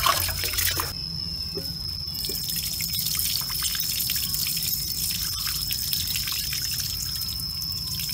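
Rice and whole mung beans being swished by hand in water in a metal pot, with a brief splash near the start. Then the cloudy rinse water trickles and drips steadily out over the pot's rim through a cupped hand as the grains are drained.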